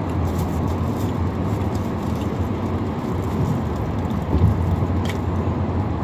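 Steady road and engine rumble heard from inside the cabin of a moving car, with a brief click about five seconds in.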